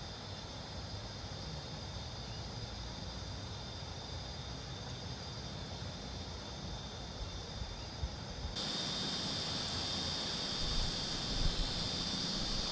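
Steady outdoor ambience: a high, even insect drone over low wind rumble on the microphone. It grows louder about eight and a half seconds in, with a couple of faint knocks near the end.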